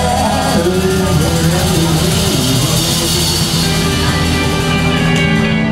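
Live band playing: two electric guitars, saxophone and drum kit, with long held notes over steady cymbals.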